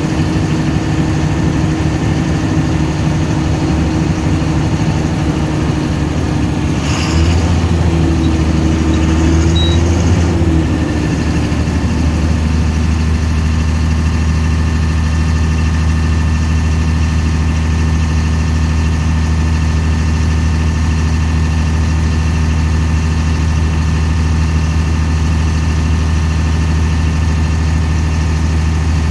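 Ashok Leyland diesel engine idling steadily, heard from the driver's cab. About seven seconds in there is a short hiss, and the low rumble swells for a few seconds before settling back to a steady idle.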